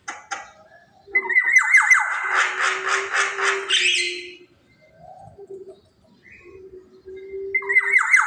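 Black-naped oriole (kepodang) giving rasping calls in rapid runs: one loud bout starting about a second in and lasting some three seconds, softer calls after it, and a second loud bout near the end.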